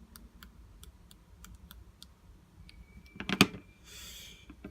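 Small, light clicks and taps of handling a disassembled iPhone 8 and its parts, with a louder cluster of clicks and a clatter about three and a half seconds in, then a brief hiss.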